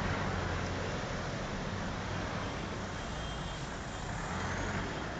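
Road traffic from a slow motorcade of cars and trucks: engines running with a steady low rumble.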